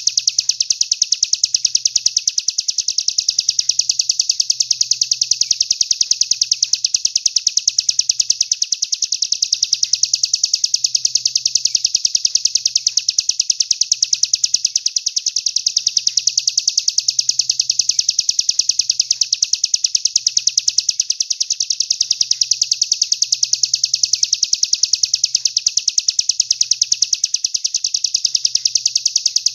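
Songbird giving a continuous, fast, high trill of rapidly and evenly repeated chirps, unbroken and unchanging throughout.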